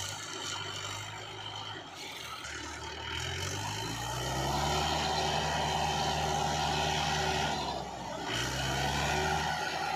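Mahindra 575 DI tractor's four-cylinder diesel engine revving up under heavy load about three seconds in and holding high revs for several seconds. It drops back briefly and revs up again near the end, straining to pull a stuck, heavily loaded sugarcane trailer.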